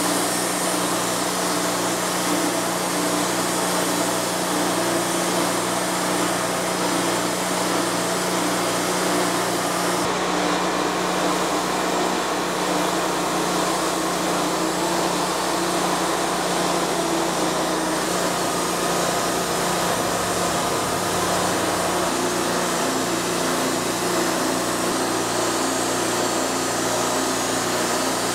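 Wood-Mizer LT40 hydraulic bandsaw mill running steadily, its band blade sawing through a monkey puzzle log to take off a slab.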